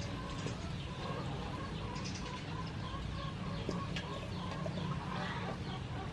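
Birds calling in the background with a quick run of short repeated notes, over the soft sound of hands squeezing shredded green mango in a steel bowl.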